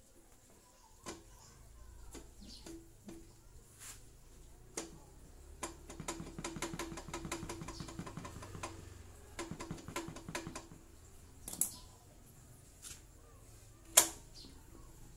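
Ratchet wrench clicking in two quick runs as a bolt is turned, with a few separate sharp metal clinks, the loudest one near the end.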